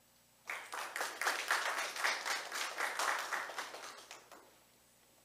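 Audience applauding, starting about half a second in and dying away after about four seconds.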